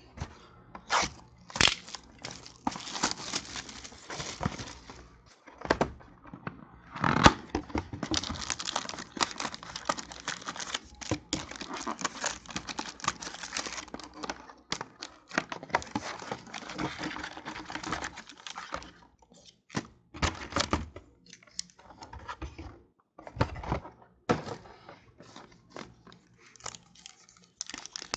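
Box of 2016 Panini Crown Royale football cards being torn open and its foil card packs pulled out and ripped open: tearing, crinkling wrapper and cardboard handling noises in irregular bursts with brief pauses.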